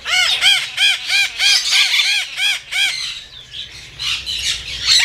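Parrots in an aviary squawking: a fast run of short, harsh calls at about four a second for some three seconds, each call rising and falling in pitch, then more squawks near the end.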